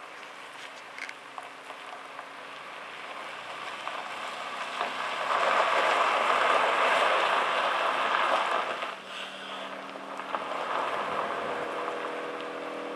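Heavy truck pulling a low-loader trailer across gravel: a rushing hiss swells up for about four seconds in the middle, then dies back to the steady hum of the truck's diesel engine running.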